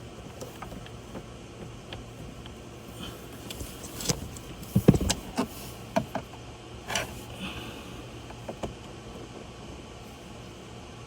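Plastic clicks and knocks of a car's glove box being handled and worked loose: a few faint ticks, then a cluster of sharper clicks between about four and seven seconds in, the loudest a thump near five seconds.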